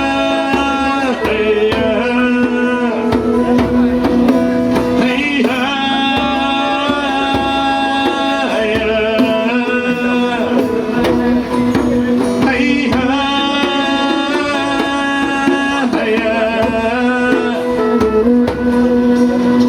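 Live band music: an instrumental passage of long held melodic notes over a steady low drone, with hand percussion underneath.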